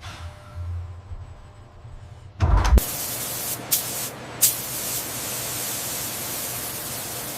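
A low hum, then a thump about two and a half seconds in, followed by a loud, steady hiss like escaping air or spray, broken by two sharp clicks.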